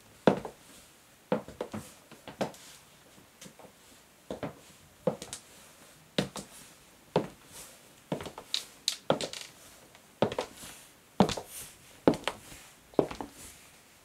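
Black stiletto high heels tapping on a wooden floor in slow, unhurried steps, about one a second. Each step is a sharp heel click, often followed by a softer tap of the sole.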